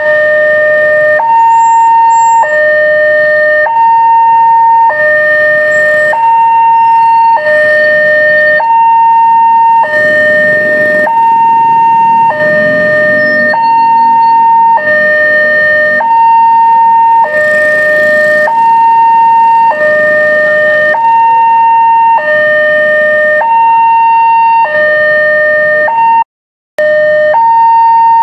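Railway level-crossing warning siren sounding from a horn loudspeaker: a two-tone hi-lo signal alternating evenly between a higher and a lower tone, each held a little over a second. It is the crossing's recently replaced siren, warning of an approaching train. The sound cuts out for about half a second near the end.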